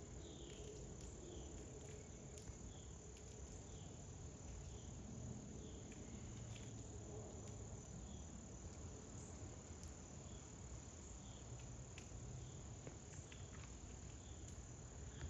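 Faint, steady, high-pitched insect chorus, with soft chirps repeating through it.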